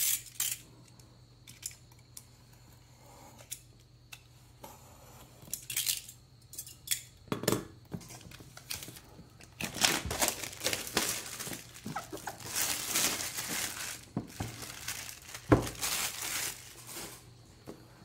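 Clear plastic shrink-wrap crinkling as it is peeled off a boxed laptop, among taps and knocks from handling the cardboard box. Scattered rustles and taps give way to dense crinkling over the second half, with a sharper knock a little past halfway through.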